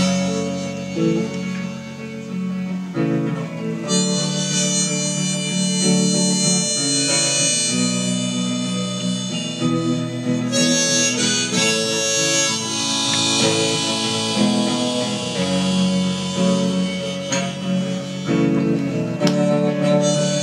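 Instrumental music: a guitar played with a harmonica over it. The harmonica comes in strongly about four seconds in and keeps playing melody lines.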